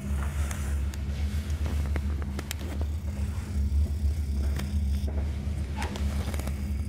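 Steady low rumble of a passing freight train heard through a closed hotel window, between blasts of its horn, with scattered sharp clicks.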